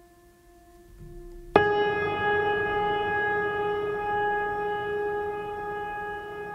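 Pressure cooker whistle blowing: a faint steady tone, then about a second and a half in, a sudden loud, steady, high whistle over rushing steam as the weight lifts and the cooker vents at full pressure.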